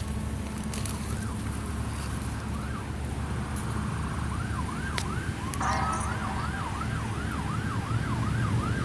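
Emergency vehicle siren in a fast rise-and-fall yelp, about three sweeps a second, faint and intermittent at first and growing louder from about six seconds in, over a steady rumble of highway traffic.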